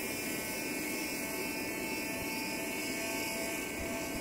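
Small DC motor of a homemade pen-style electric screwdriver running steadily, turning a precision bit in a tiny phone screw: an even whine over a hiss. A lower tone joins about halfway through.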